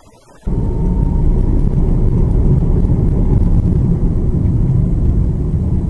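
Steady road and engine noise of a moving car, heard from inside the cabin through a dash cam; it cuts in abruptly about half a second in.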